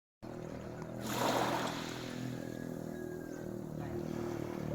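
Waves washing onto a beach, swelling about a second in, over a steady low hum.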